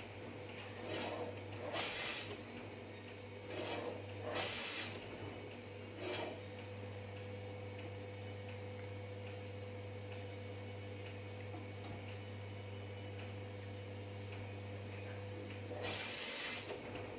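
Electric meat slicer running with a steady hum while its rotating blade shaves slices off half-frozen beef: five short swishing strokes in the first six seconds, then a pause, and one more near the end.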